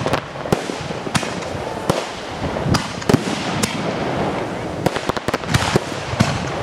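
Aerial fireworks display: shells launching and bursting in the sky, heard as a rapid, irregular series of sharp bangs over a continuous background noise.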